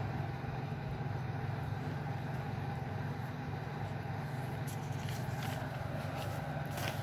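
Steady low background hum, with a few brief rustles and taps in the second half as the textbook's pages are shifted and turned.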